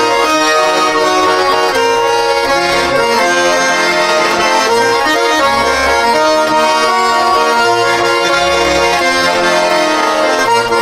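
Russian garmon (button accordion) playing an instrumental passage of a folk-style song, with sustained chords in the right hand over a pulsing bass accompaniment.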